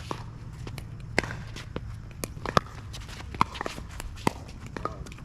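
Pickleball rally: paddles striking the plastic ball with sharp pocks, about one a second, with lighter footsteps on the court between the hits.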